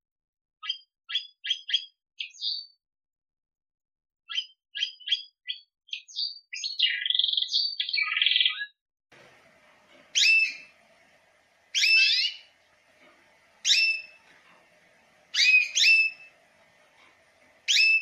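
Black-headed canary (Serinus alario) singing: quick high chirps and a buzzy trill in the first half. From about halfway, in a second recording with more background noise, a loud call repeats about every two seconds, each a sharp upward sweep ending in a held whistled note.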